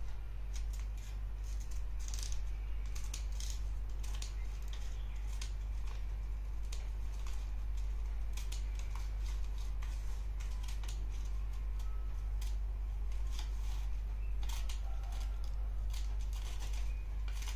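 Scissors snipping through folded paper in short, irregular cuts, over a steady low hum.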